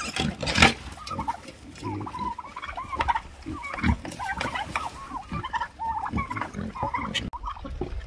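Pigs and piglets at feed squealing and grunting: many short, wavering calls overlapping one another.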